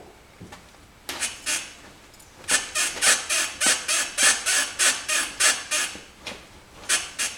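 Ball joint on a Mitsubishi's straight control arm squeaking as the suspension is worked back and forth: a pair of creaks, then a run of about a dozen at roughly four a second, then two more near the end. The ball joint is the source of the suspension creak.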